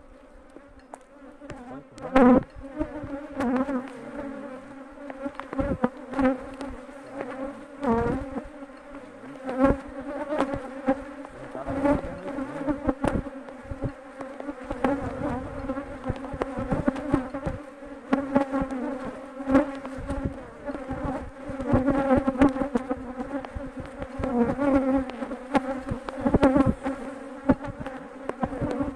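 Honeybees buzzing in a crowd around an opened hive: a steady, slightly wavering low hum, broken by frequent sharp knocks and bumps.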